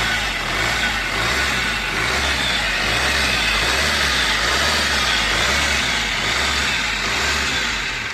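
2011 Fiat Punto engine running at idle with a steady mechanical rattle over the engine note. The mechanic puts the knocking "dak" sound down to a loose timing chain, with the idler bearing also noisy.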